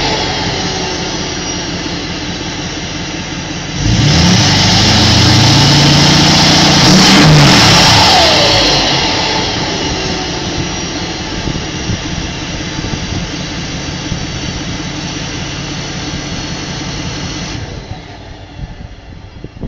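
Ford 6.4 L Power Stroke V8 turbo-diesel heard at the exhaust, settling from high revs and then revved hard again for about four seconds. As the revs drop each time, a whistle falls in pitch, and the engine settles into a steady idle. The sound gets noticeably quieter near the end.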